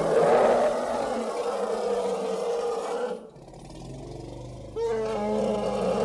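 Elephant calls: a long pitched call of about three seconds, a quieter low rumble, then a second call beginning just before the five-second mark.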